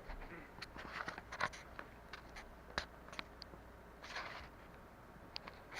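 Small electronic parts and boards being handled on a workbench: scattered light clicks and taps, with a few brief soft rustles.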